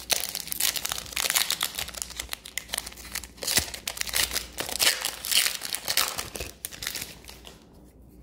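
Foil wrapper of a 2021-22 Upper Deck Series Two hockey card pack being torn open and crinkled by hand: a dense, irregular crackling that dies away about seven seconds in.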